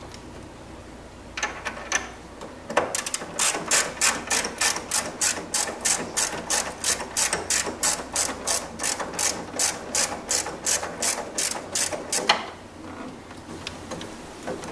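3/8-inch ratchet with a 14 mm socket on an extension clicking as it backs out an engine mount bracket bolt: a steady rapid run of sharp clicks, about three a second, starting about three seconds in and stopping about twelve seconds in, with a few fainter clicks near the end.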